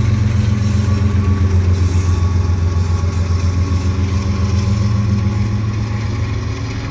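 GE ES44AC diesel locomotive, working as a mid-train distributed power unit in a freight train, passing close by with its GEVO-12 engine running in a steady low drone. The drone is loudest as the unit goes by and eases a little near the end.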